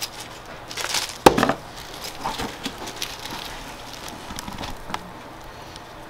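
Rustling and crinkling of a paper mailer and a small plastic bag being handled, with one sharp knock about a second in and small scattered clicks after it.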